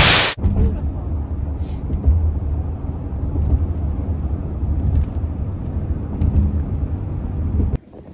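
Steady low road and engine rumble heard inside a moving car's cabin, cutting off suddenly near the end.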